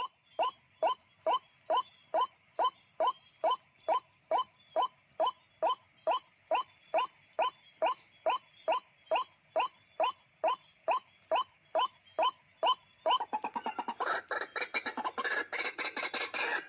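White-breasted waterhen (ruak-ruak) calling, the kind of call played to lure the birds in. It gives a long run of short, evenly repeated calls, a little over two a second, then about thirteen seconds in breaks into a faster, jumbled chatter of many notes.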